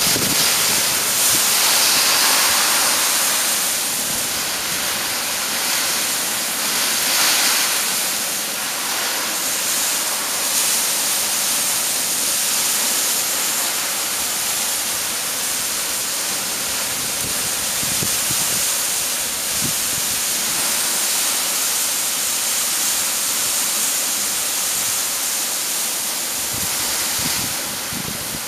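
Torrential wind-driven rain of a microburst thunderstorm: a loud, steady hiss that swells with gusts about two and seven seconds in.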